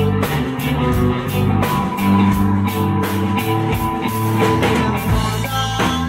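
Live rock band playing: electric guitar and electric bass over a drum kit keeping a steady beat.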